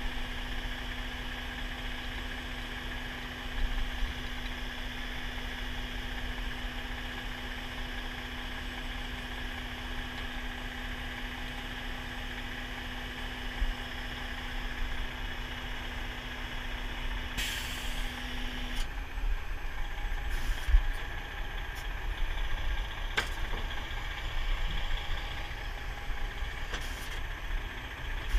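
Heavy-duty wrecker's diesel engine running steadily, with a steady whine that stops about two-thirds of the way through. A few sharp clicks follow.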